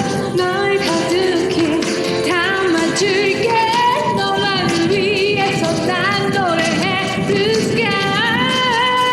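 A woman singing a pop song live with band accompaniment. She holds long notes with vibrato about halfway through and again near the end.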